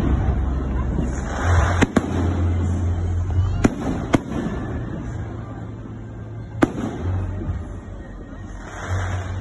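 Fireworks going off: a quick pair of sharp bangs about two seconds in, two more near four seconds, and one near seven seconds, over a continuous low rumble.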